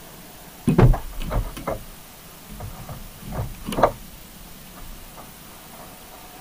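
A series of sharp knocks and thuds on the deep-sea camera rig: a cluster about a second in and another, louder one just before four seconds. A steady hiss runs underneath.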